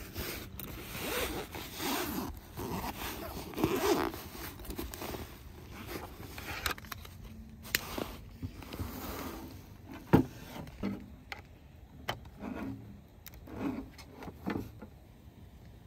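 A zipper pulled in several rasping strokes with rustling, then a few sharp clicks or knocks in the second half.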